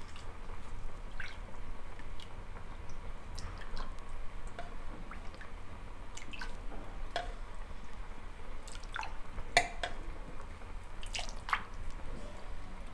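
Broth being ladled out of a pressure cooker with a metal ladle and poured into a bowl: liquid dripping and splashing, with a few sharp clinks of the ladle against the pot.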